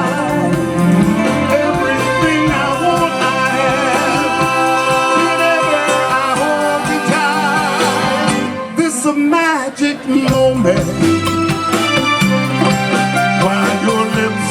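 Live soul band playing with a singer's wavering, drawn-out vocal lines over the band. The music dips briefly about nine to ten seconds in, then the band carries on.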